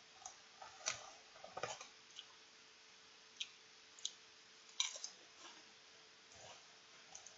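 Faint, sparse crunches and crackles of potato chips: the bag handled, a chip bitten and chewed, with a few sharp clicks about midway. A faint steady hum lies underneath.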